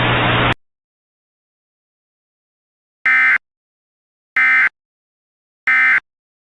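A steady hiss with a low hum cuts off about half a second in. After a silence come three short, identical data-tone bursts about 1.3 seconds apart: the Emergency Alert System end-of-message (EOM) code that marks the close of the alert.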